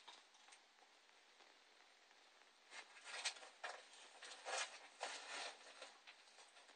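A savannah monitor scrabbling across loose soil substrate: near quiet at first, then from about halfway through, a run of short, faint scratches and rustles.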